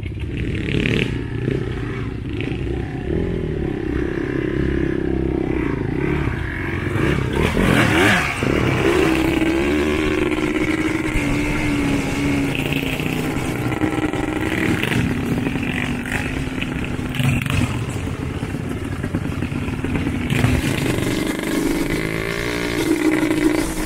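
ATV engines running and revving as the quads ride a rough dirt trail, the pitch rising and falling with the throttle, with a sharp rev about eight seconds in.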